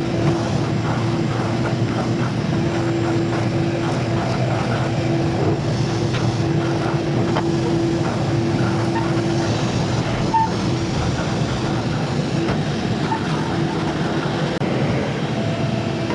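Craftsman 12-gallon, 6 hp wet/dry shop vacuum running steadily while sucking up sawdust. Its motor gives a constant whine over the rush of air.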